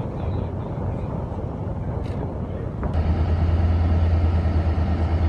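Engine of a boat under way, a steady low rumble with water and wind noise; about three seconds in it jumps to a louder, steady low engine hum.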